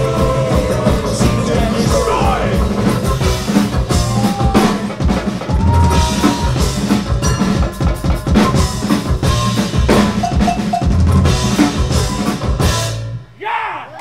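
Live band playing heavy metal on bluegrass instruments: acoustic guitar, banjo and double bass over a hard-hit drum kit beat. The music stops suddenly near the end.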